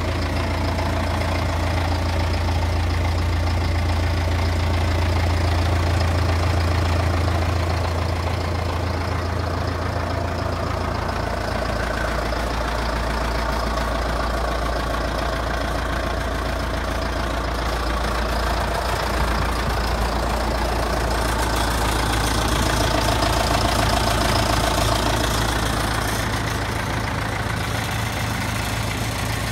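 John Deere 5100R tractor's four-cylinder diesel engine idling steadily. Its low hum shifts in tone twice.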